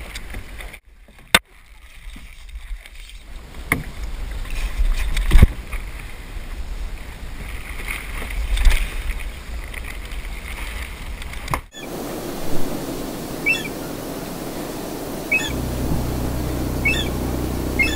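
Wind rumbling on a boat-mounted camera's microphone while a 49er skiff is rigged on the dock, with occasional sharp knocks and clanks from the mast and fittings. About twelve seconds in, the sound cuts to a calmer harbourside background with faint, short high chirps about once a second.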